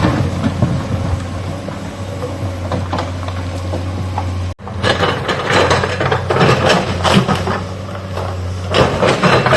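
Hydraulic excavator's diesel engine running steadily under load, with irregular knocks and clatter of rock and soil as it digs. The sound cuts out for an instant about halfway through.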